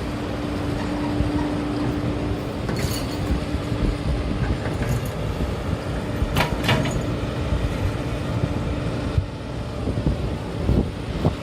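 Heavy machinery running steadily with a low rumble and a constant hum. A few sharp clanks come about six seconds in and again near the end.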